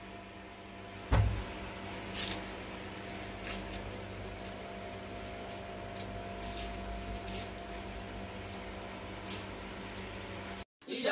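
A knife cutting a peeled onion over a plastic bowl: a sharp knock about a second in, another about a second later, then scattered light taps and scrapes, over a steady low electrical hum.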